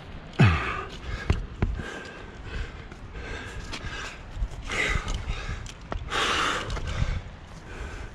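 A climber's hard breathing while moving up a granite crack: a short voiced exhale that drops in pitch about half a second in, then several breathy puffs, with a few sharp taps and scrapes of hands, shoes and gear against the rock.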